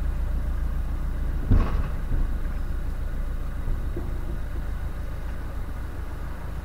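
Narrowboat diesel engine running steadily at cruising speed, a constant low hum. A brief loud knock comes about a second and a half in.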